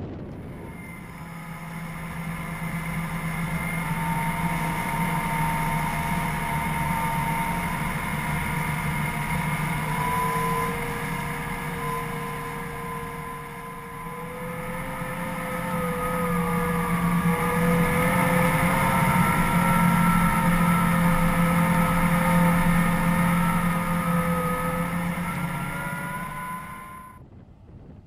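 Case IH combine harvesters and a grain-cart tractor running while harvesting wheat: a steady engine drone with a whine that wavers slightly in pitch. It grows louder from about halfway in and cuts off sharply shortly before the end.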